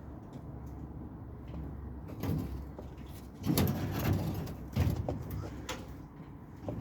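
Heavy knocks and scraping of a metal tool box being shifted onto a flatbed, in several separate clunks with the loudest about halfway through, over a steady low rumble.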